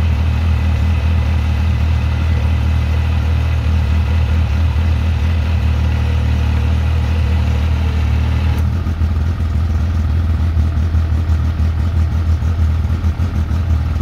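A side-by-side's engine running steadily while its 4,500 lb electric winch whines, hauling under heavy load on a multi-part snatch-block line against an 8,000 lb shipping container. The higher winch whine cuts off about eight and a half seconds in, leaving the engine running.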